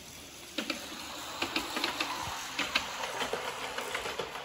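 Miniature ride-on railway train approaching, its wheels clicking and clattering irregularly on the track. It gets louder from about half a second in.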